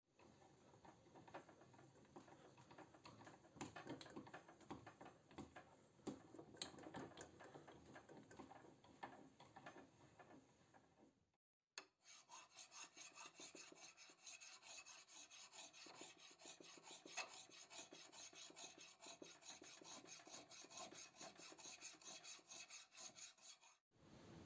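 Faint hand rubbing and rasping strokes, as in sanding or filing by hand, broken by a cut about halfway through, after which the strokes come quicker and more evenly.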